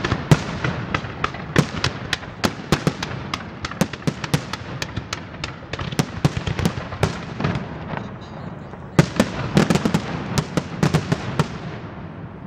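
Aerial fireworks display: a rapid, irregular string of shell bursts, several sharp bangs a second over a continuous rumble. The bangs thin out about eight seconds in, come back in a dense volley, then die away near the end.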